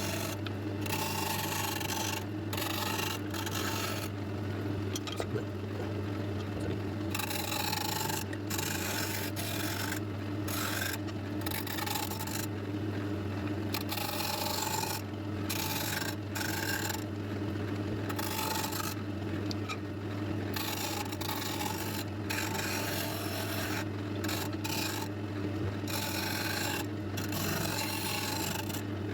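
Wood being rubbed or rasped in irregular strokes over a steady machine hum.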